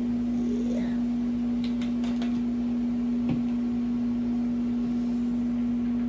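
A steady low hum on one pitch, with a few faint clicks in the first half.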